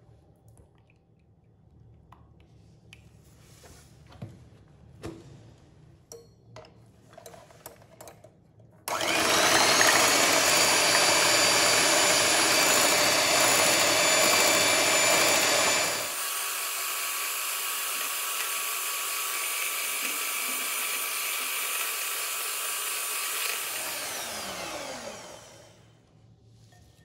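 Electric hand mixer with twin wire beaters whipping cream in a glass bowl. After a few faint knocks, the motor starts suddenly with a steady whine, runs quieter from about halfway through, and winds down with a falling pitch near the end.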